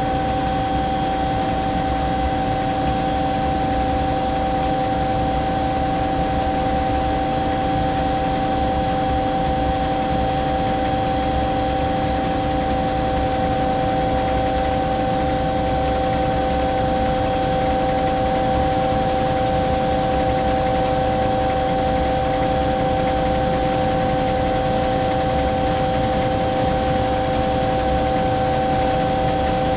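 Bell 212 helicopter in flight heard from inside the cabin: a steady, loud drone of turbines, gearbox and rotor with several constant whining tones over a fast low rotor flutter, unchanging throughout.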